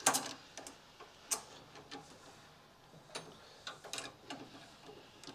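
Faint, irregular clicks and light metal knocks from parts being handled while a kit car's handbrake cable is fed into place, the sharpest right at the start.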